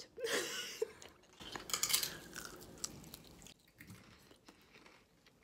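Close-miked biting and chewing of a forkful of battered, sauced meat. The mouth sounds are loudest in the first two and a half seconds, then continue as softer chewing.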